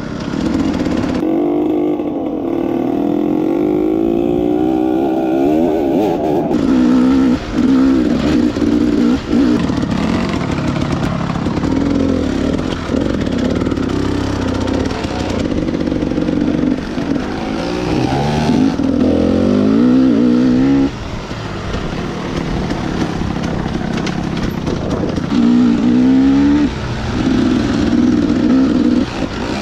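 Enduro dirt bike engine under way, revving up and falling back again and again as the rider accelerates and shifts. The engine drops off sharply about two-thirds of the way through.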